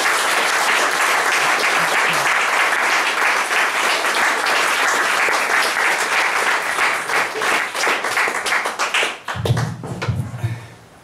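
An audience applauding: dense, steady clapping that dies away about nine seconds in, followed by low bumps as the microphone is handled on its stand.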